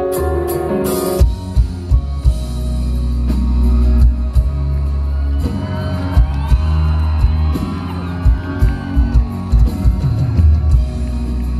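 A live rock band playing through a large outdoor PA system, heard from the crowd. A sustained keyboard intro gives way just after a second in to heavy bass and drums, and a melodic line sliding in pitch comes in from about halfway.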